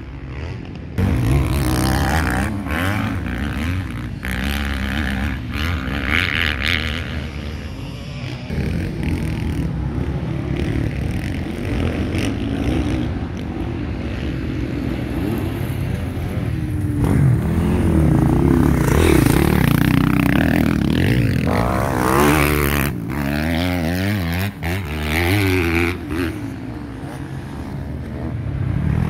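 Motocross dirt bike engines revving hard and changing gear as the bikes ride up the dirt track and past. The pitch climbs and drops with each throttle change, loudest about two thirds of the way through.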